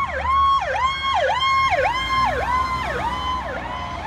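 Electronic sirens of fire department emergency vehicles on a call: one sweeping rapidly in a yelp, about two dips in pitch a second, while a second siren's slower wail falls in pitch toward the end.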